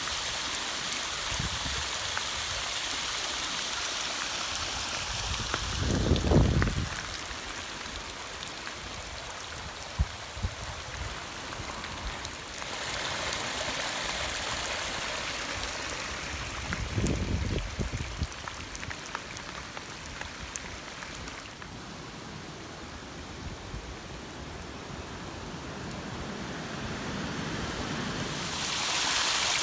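Floodwater rushing and splashing as it pours over rock and streams across a dirt trail. Two brief low rumbles come through, about six seconds in and again near seventeen seconds, and the water grows louder near the end.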